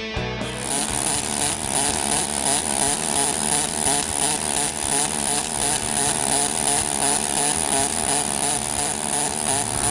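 Modified pulsed MIG welding arc (ESAB SuperPulse) buzzing steadily with a fast crackling pulse and a constant high whine, starting about half a second in.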